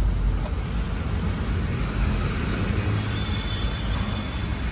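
Steady low rumble with a hiss over it: the background machine noise of a car-wash workshop. A faint high whine comes in about three seconds in.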